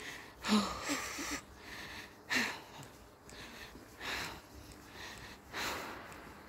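A woman breathing hard while jogging, a loud breath roughly every one and a half seconds, a couple of them with a short falling sound of voice. It is the laboured breathing of a runner whose throat has gone dry.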